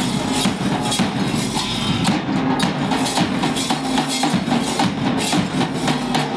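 School percussion band playing a quick, steady beat on snare drum, bass drum and hand cymbals.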